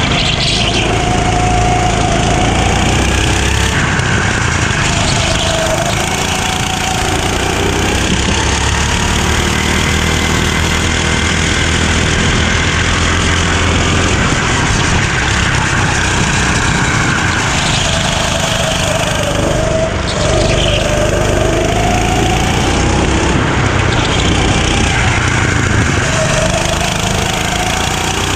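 Go-kart engine running hard, its pitch falling and rising again several times as engine speed drops and picks back up, over a steady rushing noise.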